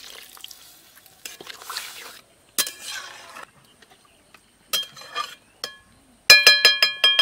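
Water poured into a curry in a hot metal wok, hissing softly, then a flat metal spatula stirring and knocking against the wok. A few single clinks lead up to a quick run of about six loud ringing clinks near the end.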